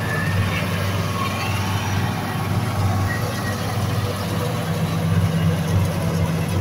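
Diesel tractor engines idling steadily, a low even hum.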